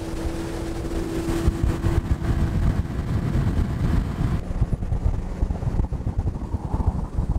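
Evinrude outboard motor running at speed as the boat planes across open water, with a steady hum in the first two seconds over a dense, uneven low rumble of motor, water and wind.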